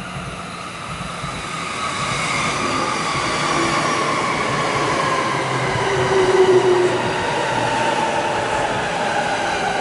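Saikyo Line E233-series electric train pulling in alongside the platform and slowing, its motors whining in several tones that slide slowly down in pitch over a growing rumble of wheels on rail. A short squeal, the loudest moment, comes about six seconds in.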